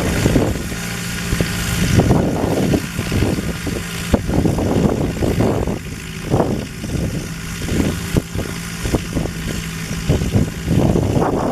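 Aircraft engine running steadily, a hiss with a low even hum under it, while wind gusts buffet the microphone.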